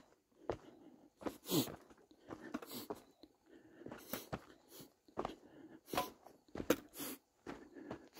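Footsteps crunching on a dirt and rock trail while walking downhill over stone steps, in an uneven beat of about one to two steps a second.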